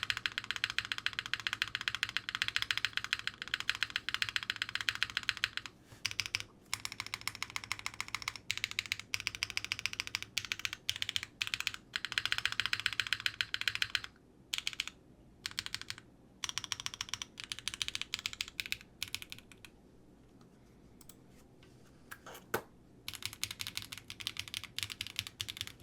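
Typing on a Quantum60 custom 60% mechanical keyboard with SWK Cat Mint switches on a polypropylene plate and an O-ring mount: fast runs of key clicks broken by short pauses, with a lull about twenty seconds in before typing resumes. The sound is solid, with no hollowness.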